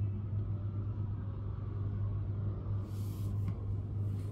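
Steady low background hum, with two short soft hisses in the second half.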